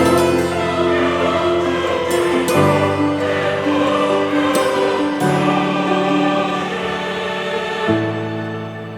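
Background choral music: voices singing long held chords that change about every two and a half seconds.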